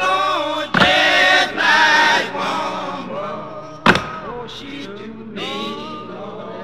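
Music: a song with a male voice singing, with one sharp crack about four seconds in.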